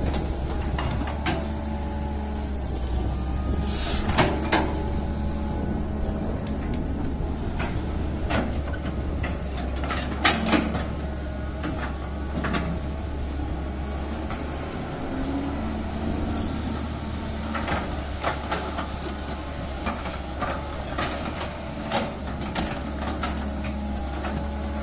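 Caterpillar 320C hydraulic excavator at work: its six-cylinder diesel engine runs steadily under load with a hydraulic whine. Sharp metallic clanks from the bucket and linkage come now and then, several close together near the end, as it digs and swings soil.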